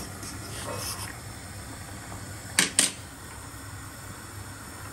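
Two sharp knocks of a metal spoon against a cooking pot, a fraction of a second apart about halfway through, over a steady low hum.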